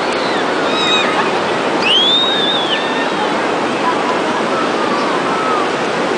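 Steady wash of ocean surf on a sandy beach, with distant voices of beachgoers and one high rising-and-falling call about two seconds in.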